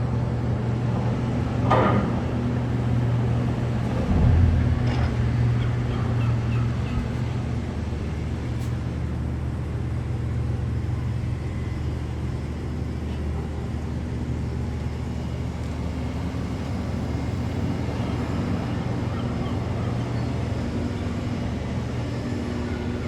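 A boat engine runs with a steady low hum, while seagulls call now and then, mostly in the first several seconds.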